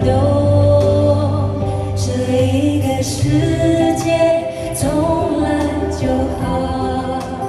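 Live pop ballad performance: sung vocals, with choir-like voices, over a full accompaniment with a steady low bass.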